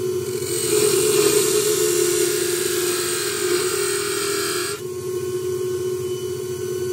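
Wood lathe running steadily while a narrow turning tool cuts into the spinning oak blank, a scraping cut that stops just under five seconds in. The lathe's steady hum continues after the cut stops.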